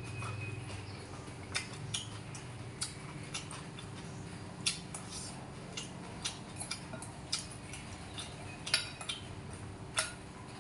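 Metal spoon and fork clinking and scraping against a ceramic rice bowl: irregular sharp clicks, one every half second or so, over a steady low hum.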